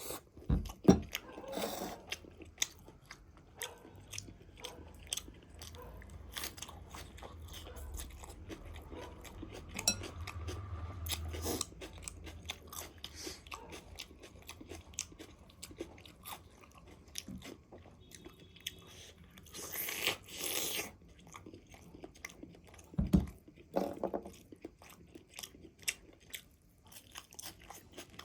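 Close-up biting and chewing of crispy fried chicken leg pieces: irregular crisp crunches, with louder bites about a second in and again near the end.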